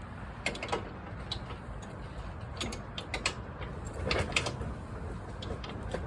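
Irregular metallic clicks and clinks of hand tools working the bolts of a truck's steering gearbox, coming in short clusters over a steady low background hum.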